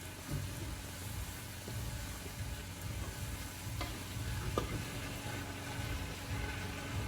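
A spoon stirring a pot of sizzling pepper-and-onion sauce with pieces of cow skin, with two sharp clicks of the spoon against the pot about four seconds in.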